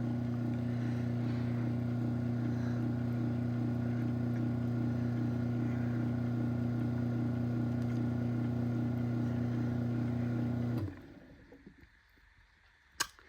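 Chamberlain B353 belt-drive garage door opener's motor running steadily as it closes the door: a low hum with a faint even pulsing that stops abruptly about eleven seconds in. A single sharp click follows shortly after.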